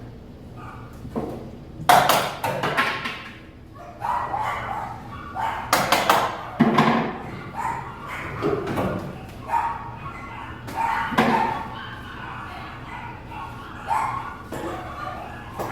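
Dogs barking repeatedly, short sharp barks every second or two.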